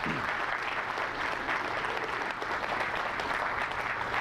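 Audience applauding a lecture at its close: many people clapping in a steady, dense patter.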